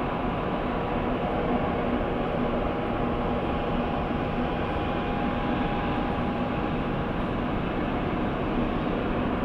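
A column of airport snow-clearing vehicles, plow trucks and runway sweepers, running together: a steady low rumble of engines and brushes with a faint steady whine over it.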